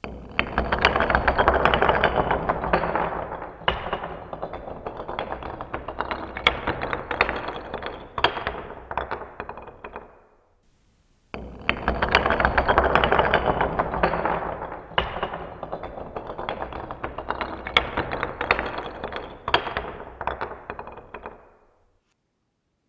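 Long chain of dominoes toppling in a rapid clattering run, dense and loud at first, then thinning into scattered clicks until it dies away after about ten seconds; after a second of silence a second chain falls the same way.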